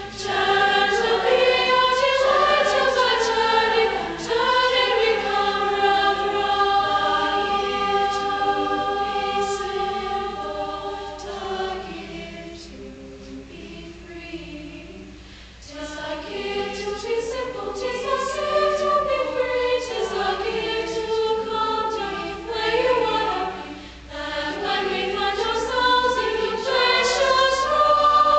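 Choir singing sustained chords, mostly young women's voices. It softens to a quiet passage about halfway through, then swells again toward the end.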